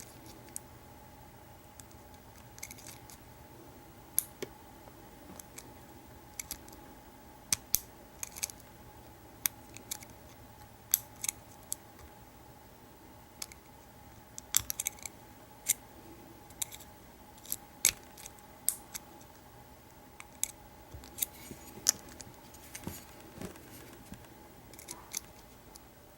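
Hook pick and tension wrench working the pin tumblers of a vintage American Series 50 steel padlock during single pin picking: irregular sharp metallic clicks and ticks, a few at a time, over a faint steady hum.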